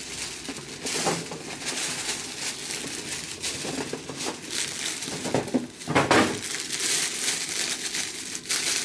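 Clear plastic packaging bag and tissue paper crinkling and rustling as a wrapped item is lifted out and handled, with louder bursts of crinkling about a second in and around six seconds in.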